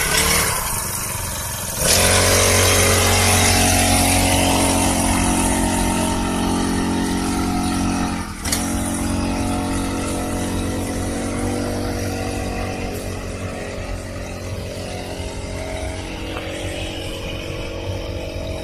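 Small petrol engine of a motorised paddy weeder running. It revs up about two seconds in, dips briefly about eight seconds in, then runs on steadily.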